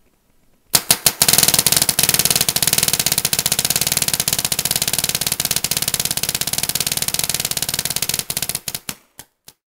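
Planet Eclipse electronic paintball marker firing: a few single shots, then a long, very rapid string of shots for about seven seconds, tapering to a few spaced shots near the end.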